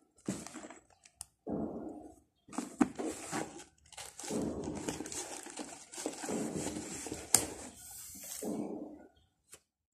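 Handling noise from a tactical headset and its hard-shell carrying case: irregular rustling and rubbing in short bursts, with a few sharp clicks and knocks, the loudest click a little past seven seconds in.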